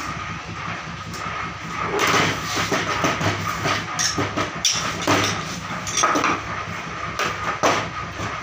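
Irregular metallic clanks and scrapes as a steel compression mould and tools are handled on a workbench. Under them runs a steady hum with a thin constant whine.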